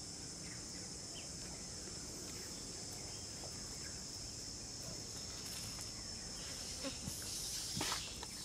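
Steady high-pitched drone of insects, with scattered faint rustles and clicks and a brief louder scuff near the end.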